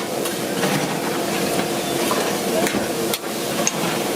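Steady sizzling with small crackles, as of steak frying on a hot grill, over a low steady hum.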